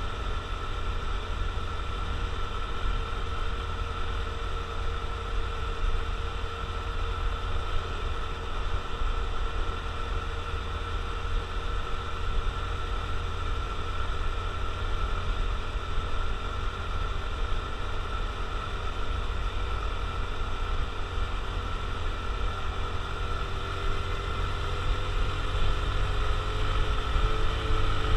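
Honda CT125 Trail Hunter Cub's 125 cc single-cylinder four-stroke engine running steadily under way, over a constant low rumble. The engine's pitch rises a little near the end.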